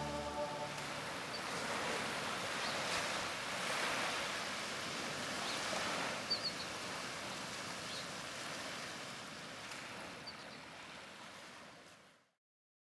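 Ocean surf washing onto a sandy beach: a steady rush of breaking waves that swells and eases, fading out near the end.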